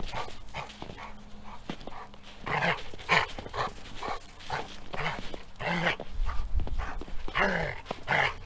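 Weimaraner dog giving a series of short barks and whines as it runs with a ball in its mouth.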